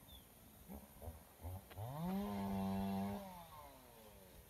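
A red junglefowl cock crowing once, starting about two seconds in: the call rises, holds steady for about a second, then falls away and fades.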